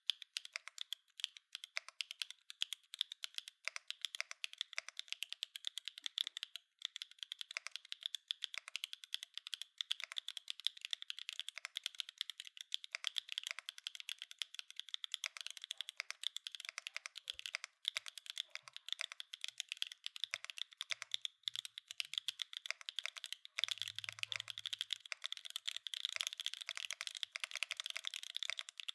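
Steady, fast typing on a Mode Encore mechanical keyboard with Obscura linear switches on a carbon fiber plate, wave-spring mounted with no foam. The keystrokes come in a dense run, with a brief pause about seven seconds in.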